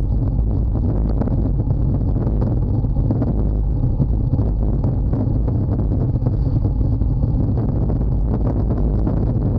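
Steady, loud wind rush buffeting the camera's microphone as a road bike descends at about 50 to 60 km/h.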